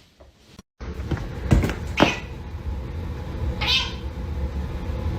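A cat meowing, three short calls over a steady low hum, after a brief dropout in the sound less than a second in.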